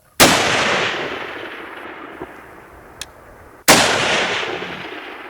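Two rifle shots about three and a half seconds apart, each trailing off in a long rolling echo. A faint click comes shortly before the second shot.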